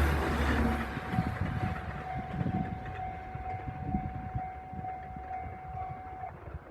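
The last of a Resort Shirakami train passing in the first second, then the level crossing's warning bell ringing steadily at about two dings a second over the train's fading rumble. The bell stops near the end as the crossing clears.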